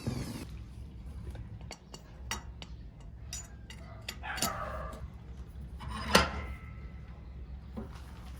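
Light metallic clinks and knocks of metal tools and parts being handled, with a sharper ringing clink about six seconds in, over a low steady hum.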